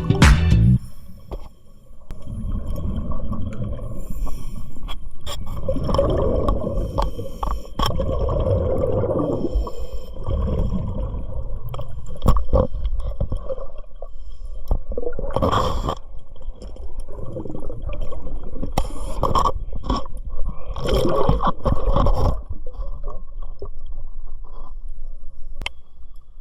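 Underwater recording of a scuba diver breathing through a regulator: uneven rushing and gurgling of exhaled bubbles, with louder bubble bursts a little after halfway and again further on.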